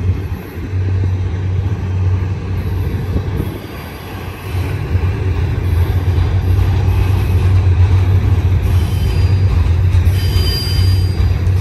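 Double-stack container train rolling past at close range: a heavy, steady low rumble of steel wheels on rail, growing louder about a third of the way through. Faint thin wheel squeal near the end.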